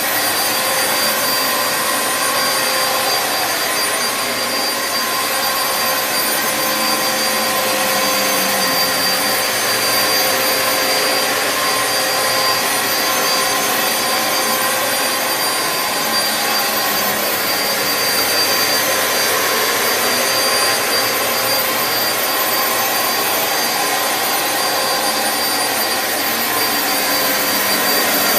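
Dyson DC07 Animal bagless upright vacuum cleaner running steadily: an even rush of air with a steady high whine over it.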